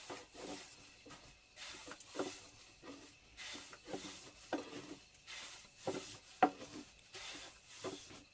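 Lavash dough being worked on a wooden board: repeated rubbing strokes about once a second, broken by sharp wooden knocks, the loudest a little after six seconds in.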